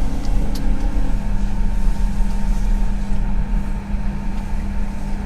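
Toshiba Elemate New Luminous elevator's announcement speaker giving a steady low drone like a ship's horn, a 'puuu' noise typical of this model, over a constant low rumble.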